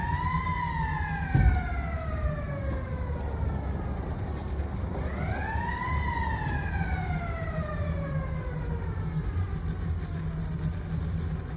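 Lift bridge's warning signal sounding twice, each wail rising quickly then falling slowly over about four seconds, signalling that the bridge is about to open. Under it a boat engine runs steadily, and there is a single thump about a second and a half in.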